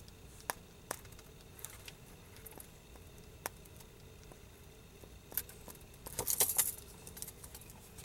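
Small scattered clicks and light metallic taps of pliers and soft wire being worked around a cord as the wire coil is tightened, with a brief scratchy rustle about six seconds in.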